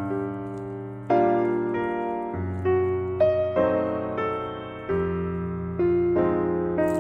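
Slow background piano music: chords struck every second or so, each left to fade.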